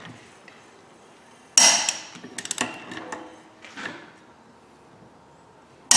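Click-type torque wrench on a rear axle hub nut: a loud, sharp click about a second and a half in, then a few fainter clicks and knocks, and another sharp click right at the end. The click is the wrench signalling that the hub nut has reached its set torque of 134 ft-lb.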